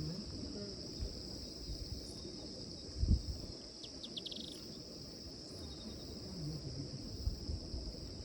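Steady high-pitched chorus of insects that never breaks, with low rustling underneath and one dull thump about three seconds in.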